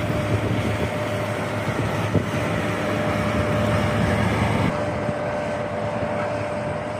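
Steady vehicle drone with a constant high whine running through it; the hiss on top drops away about two-thirds of the way through.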